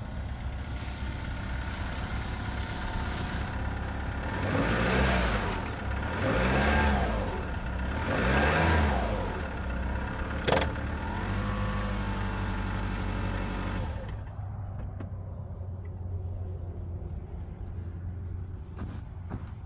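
Toyota Tundra pickup engine revving up and falling back three times in a row, then running steadily and dropping to a quieter idle near the end: the truck is stuck and trying to drive out.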